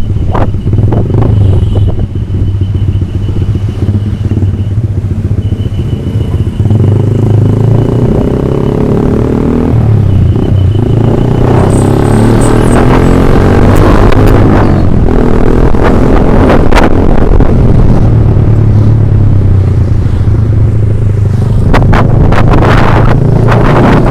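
Yamaha MX King's single-cylinder four-stroke engine running through a ROB1 aftermarket exhaust. The revs climb, drop about ten seconds in, then climb again, as in accelerating through the gears.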